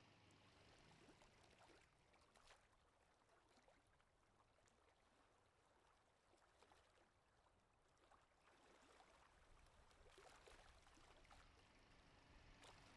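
Near silence: faint outdoor room tone with a few scattered faint ticks.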